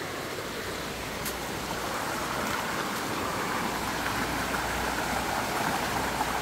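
River rapids rushing over rocks: a steady noise that grows gradually louder.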